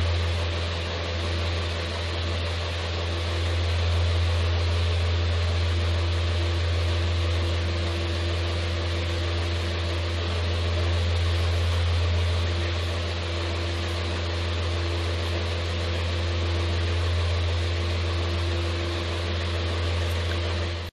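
Steady low mechanical hum with a constant hiss over it and a faint higher tone, unchanging throughout.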